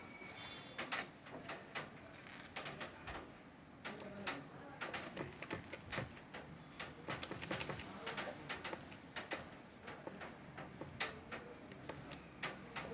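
A wireless intrusion alarm panel's keypad giving short high-pitched beeps, about fifteen at uneven spacing from about four seconds in, mixed with sharp plastic clicks and taps from handling the panel during sensor setup.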